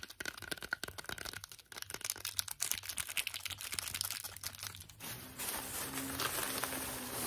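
Clear plastic wrapping on a small clipboard crinkling and crackling under fingernails in rapid taps and scratches. About five seconds in, it turns into a steadier rustling hiss.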